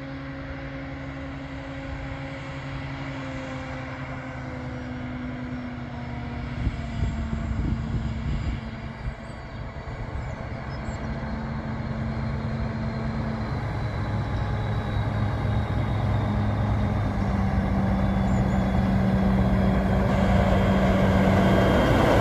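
Engine of a class 199.8 'Harzkamel' metre-gauge diesel-hydraulic locomotive running as it approaches with its train, growing steadily louder until it passes close by.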